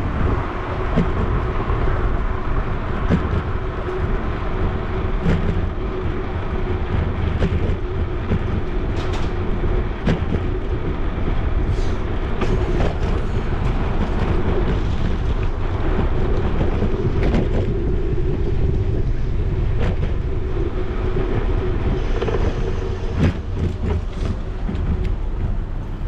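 Bicycle riding noise: tyres rolling over the street and wind rumbling on the microphone, with a steady hum and scattered rattles and knocks from bumps in the pavement.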